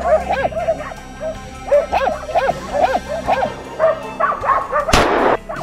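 Several West Siberian laikas barking rapidly and continuously, baying a bear at close range. A single sharp crack about five seconds in.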